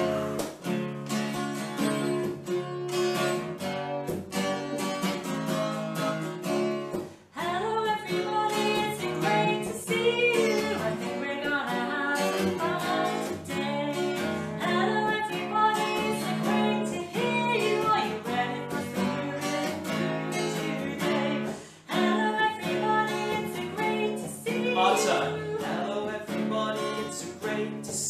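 Acoustic guitar strummed in a steady rhythm under a woman singing a lively children's song. The music breaks off briefly twice.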